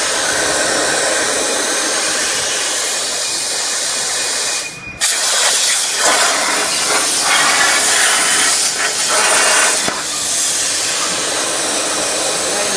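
CNC plasma torch cutting 1.5 mm stainless steel sheet: a loud, steady hiss that cuts out for a moment about five seconds in and then starts again.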